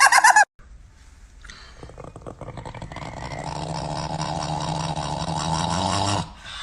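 A dog growling low and steadily, building gradually louder over several seconds after a sudden cut, then breaking off near the end.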